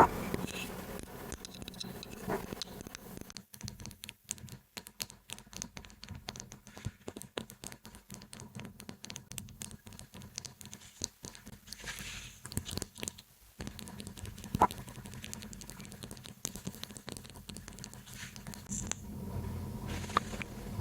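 Close-miked ASMR tapping and scratching on objects: rapid, light clicks and scrapes, with a sharp knock at the start and another about two-thirds of the way through.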